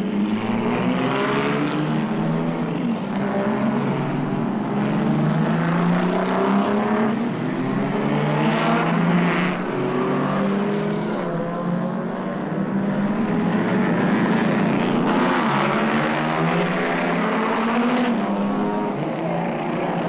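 Recorded sound effect of racing car engines speeding by one after another, the engine pitch rising and falling several times as they pass, from a 1970s stereo sound-effects record.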